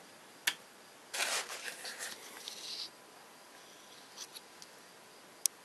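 A single sharp click of a power strip's rocker switch being switched off, followed by a couple of seconds of soft rustling handling noise, a few faint ticks, and another sharp click near the end.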